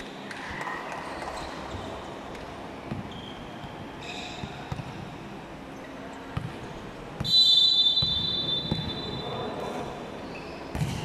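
Volleyball bounced on the hard court floor a few times. About seven seconds in comes one long referee's whistle blast signalling the serve, and just before the end a sharp smack as the ball is served.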